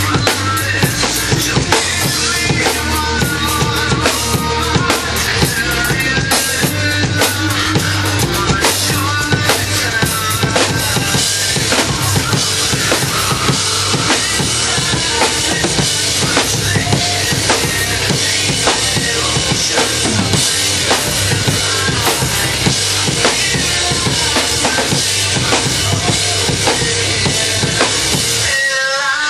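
Acoustic drum kit played continuously along to a recorded rock song, with dense, rapid strokes on bass drum, snare and cymbals over the song's music.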